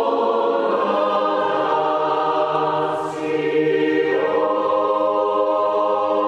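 A choir singing long held chords, moving to a new chord about four seconds in, with a brief hissed consonant just before.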